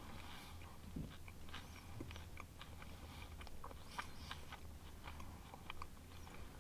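Faint chewing of a grilled cheese sandwich with crushed barbecue potato chips inside, with many small crisp crunches from the chips.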